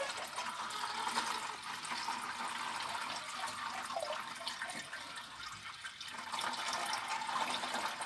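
Grape must being poured through a cheesecloth strainer, a steady stream of liquid splashing into the pot below.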